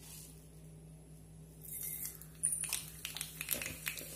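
Mustard seeds in hot oil in a small pan. The pan is quiet at first, then starts to sizzle a little before halfway, and from about halfway sharp pops and crackles come irregularly as the seeds begin to splutter.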